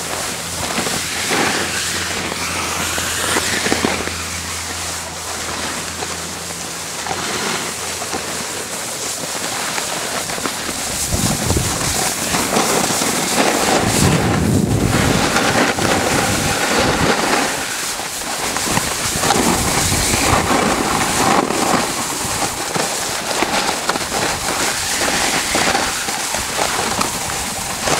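Snowboard sliding and scraping over hard-packed, icy snow, with wind rushing over the microphone. The scraping grows louder about eleven seconds in.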